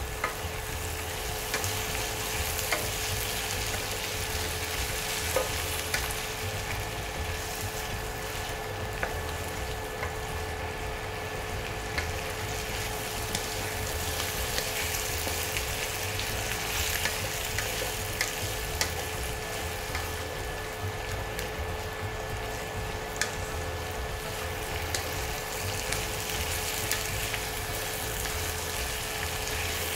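Chicken pieces, chillies and onion sizzling in a wok while a wooden spatula stirs and turns them, tapping and scraping against the pan now and then. A faint steady tone runs underneath.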